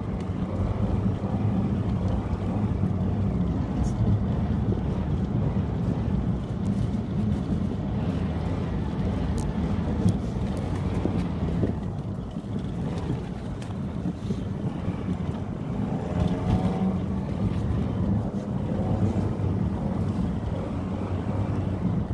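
Car engine and road noise heard from inside the cabin while driving: a steady low hum that stays even throughout.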